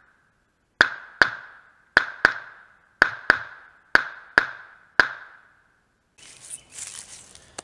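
Taurus TX22 .22 LR pistol fired nine times in quick succession, several shots coming in fast pairs. Each shot is a sharp crack followed by a short ringing tail.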